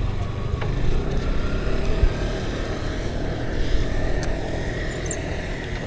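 A motor vehicle running close by: a steady low rumble with a few faint clicks.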